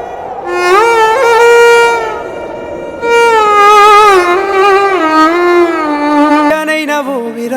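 Background song music: a violin-like bowed melody with long sliding notes over a soft accompaniment, changing texture near the end.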